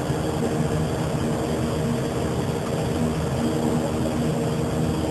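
Propeller airplane's engines and propellers droning steadily, heard from inside the cabin, with a hum of several steady tones.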